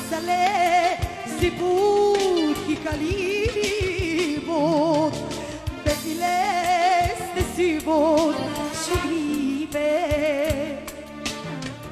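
Live band playing Balkan Roma pop-folk dance music: a lead melody with heavy, wavering vibrato over bass guitar and a drum kit with frequent sharp hits.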